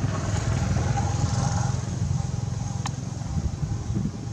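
Steady low rumble of wind buffeting the microphone, with a single sharp click about three seconds in.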